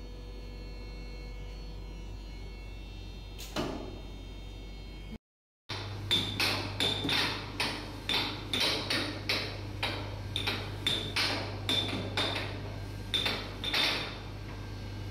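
Air hockey being played: the plastic puck clacking against the mallets and the table's rails, sharp knocks about two a second with a short ringing, over a steady low hum. Before the clacking starts, a single knock stands out in a steady hum.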